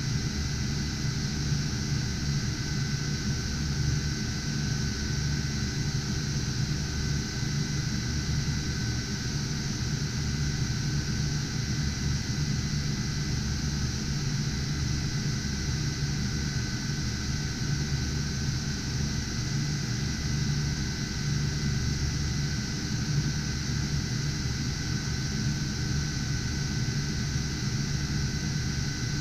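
Cooling fans of GPU mining rigs running steadily: an even rush of air over a low hum, with a few thin, steady whining tones.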